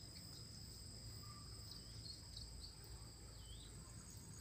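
Faint, steady, high-pitched chirring of insects, with a few short bird chirps over it.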